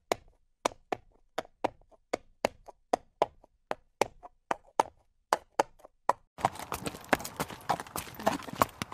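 Horse hooves clip-clopping at a walk, sharp even strikes about three to four a second. About six seconds in a different recording takes over, the hoofbeats continuing over a steady background hiss.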